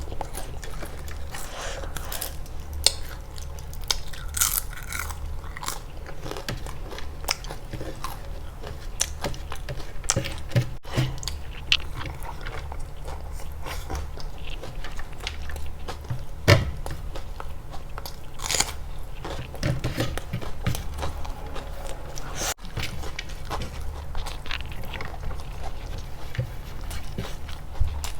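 Close-miked eating: chewing and biting, with irregular sharp crunches scattered through, over a steady low hum.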